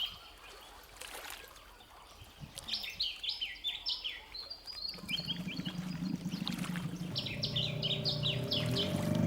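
A songbird sings two phrases of quick, repeated high notes. About halfway through, a motor's low, steady drone starts and grows louder.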